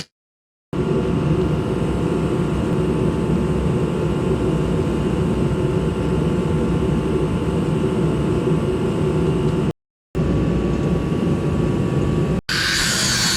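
Steady mechanical roar, broken by two short cuts to dead silence. Near the end a higher, hissing grind starts, an angle grinder cleaning steel for welding.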